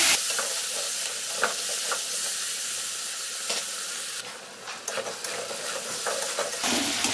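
Diced potatoes and tomatoes sizzling in mustard oil in a metal kadai, with the scrape and clack of a spatula stirring them. The tomatoes are being fried down with the potatoes until soft. The sizzle drops briefly a little past the middle.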